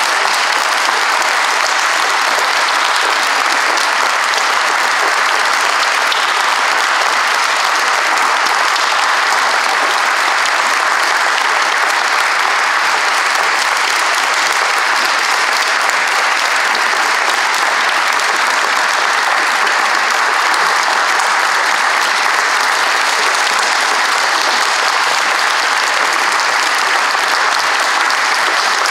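Audience and cast applauding: a steady, dense clapping of many hands that keeps up without a break.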